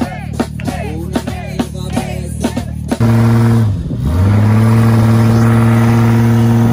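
Live norteño-style music with accordion and guitar, cut off after about three seconds by a lifted Jeep Wrangler's engine revving hard and holding high revs as it works in soft beach sand. The revs dip briefly about a second after it starts, then climb back and stay high.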